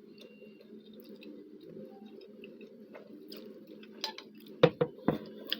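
Eating sounds: quiet chewing, then a handful of sharp clicks and clinks from about four seconds in, the loudest a little after, over a steady low background hum.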